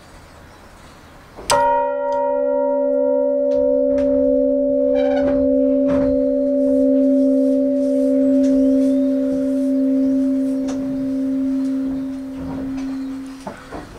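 A clock-tower bell is struck once by its hammer about a second and a half in. It rings on with a long, steady hum that fades slowly, and its higher overtones die away first.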